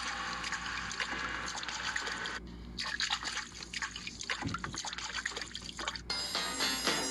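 A UniPhone Shield X36 phone's speaker playing a water-effect ringtone of trickling, dripping water. It breaks off briefly about two and a half seconds in and starts over. Near the end a different, musical ringtone begins.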